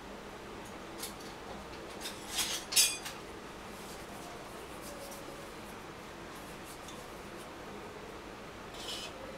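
Kitchenware clinking and rattling off camera a few times over a steady low hiss. The loudest is a quick cluster of clinks about two to three seconds in, and there is a brief rattle near the end.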